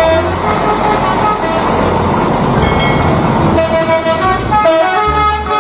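Telolet bus horn: a multi-tone horn sounding a short tune of held notes that step in pitch, with a loud rushing noise under it through the middle.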